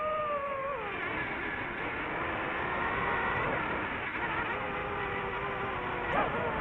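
DJI FPV drone's motors and propellers whining. The pitch drops about a second in, then wavers, with a brief quick rise and fall near the end.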